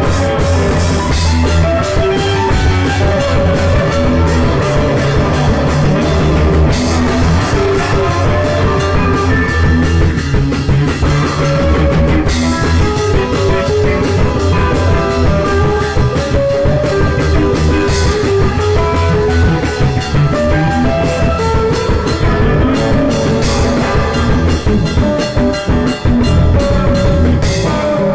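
Rock band playing: drum kit beating a steady rhythm under bass and guitar, loud and dense.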